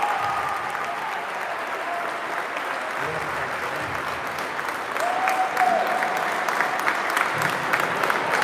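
Spectators clapping in a sports hall, mixed with voices. The clapping grows louder and sharper about five seconds in.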